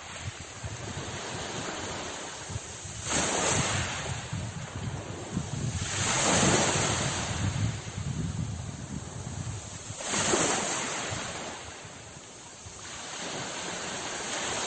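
Sea waves breaking on the shore in a steady wash, with a big wave surging in every three to four seconds and then dying away.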